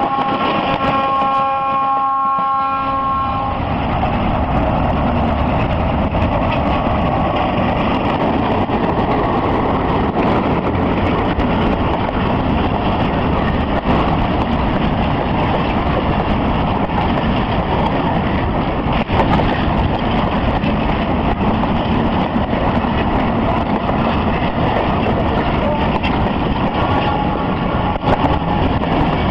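Train horn sounds as one steady note and stops about three seconds in, followed by the steady rumble of a train running on the rails.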